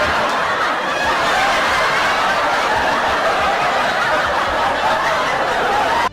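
A crowd of people laughing together, many voices blended into a steady mass of laughter, which cuts off suddenly at the end.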